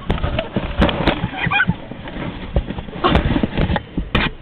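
A dog ripping and scratching at a cardboard box, heard from inside the box: irregular tearing, scraping and knocks of paws and teeth on cardboard. A brief squeak about a second and a half in.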